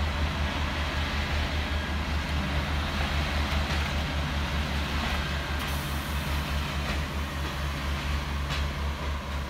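Class 142 Pacer diesel railbus departing, its diesel engine running with a steady, low throbbing drone.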